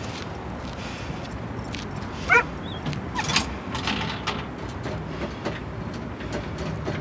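A dog barks once, sharply, about two seconds in, over a steady low street rumble. A quick run of clicks and knocks follows.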